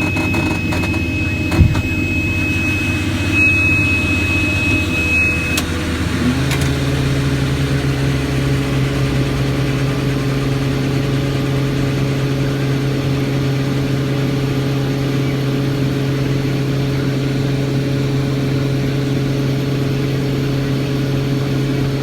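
Tractor engine running inside the cab, with a high steady beep sounding in stretches for the first five seconds or so. About six seconds in, the engine steps up to a higher speed and then holds steady.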